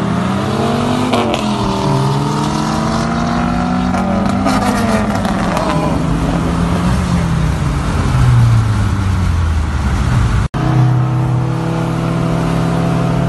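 Car engine under hard acceleration in a street race: the pitch climbs, drops back and climbs again twice, then falls away as the car slows. After a sudden break about ten and a half seconds in, the engine runs at a steady low speed.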